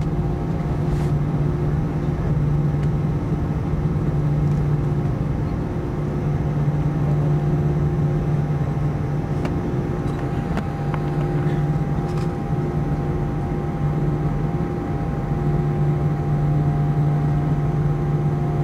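Airbus A320-200 jet engines at takeoff thrust, heard from inside the cabin during the takeoff roll: a loud, steady drone with a few held hums over a low rushing noise.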